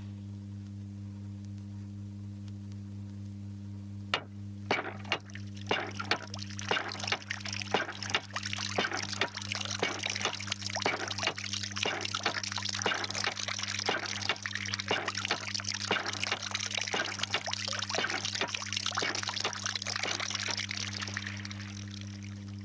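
Hand-operated water pump delivering water: a gush of splashing, pouring water starts about four seconds in and runs until near the end. A steady low hum from the old vinyl recording lies underneath.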